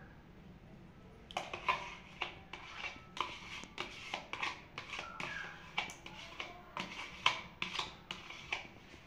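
Plastic bowl knocking and scraping against a stainless steel mixing bowl as thick yogurt is scraped out of it by hand: a string of irregular short clicks and knocks, starting about a second in.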